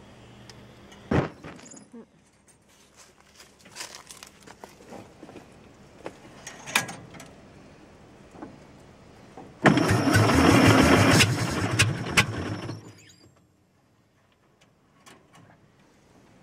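Electric starter cranking the 1950 Oliver Cletrac's six-cylinder engine for about three seconds, then stopping without the engine catching, after a few clicks and knocks. The engine is hard-starting, with a makeshift coat-hanger-wire choke and water or sediment in the fuel.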